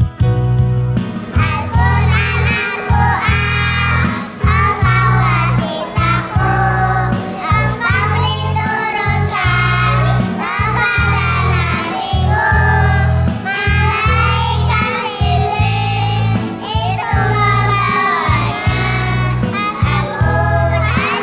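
A group of young kindergarten children singing a children's song about the Quran together, over a backing track with a steady, pulsing bass.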